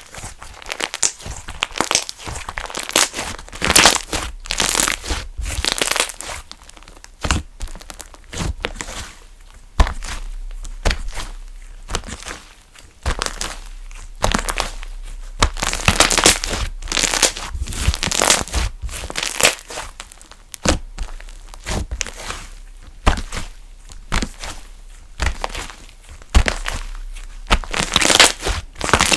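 Funfetti slime being stretched, pressed and folded by hand, giving irregular crinkly crackles and sharp clicking pops in quick clusters.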